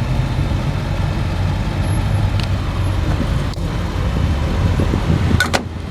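Steady low rumble of nearby road traffic and vehicle engines, with two sharp clicks near the end.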